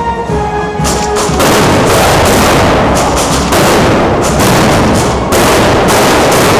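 Brass band music, drowned about a second in by a loud, continuous string of firecracker bangs from a festival fireworks salute.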